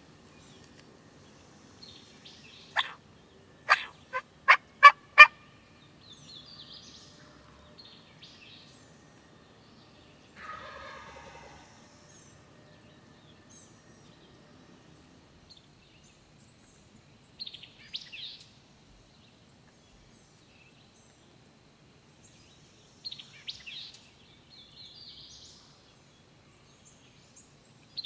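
Wild turkeys calling: a run of sharp, loud clucks between about three and five seconds in, then a gobble about ten seconds in. Small songbirds chirp now and then.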